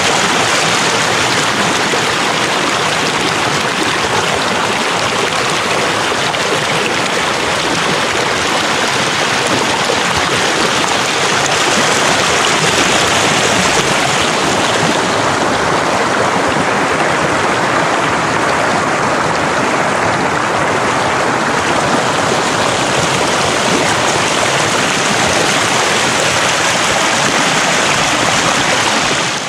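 Creek water rushing and splashing over boulders in a shallow riffle, heard close up: a loud, steady rushing.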